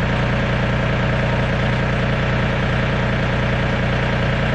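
Compact tractor's diesel engine idling steadily.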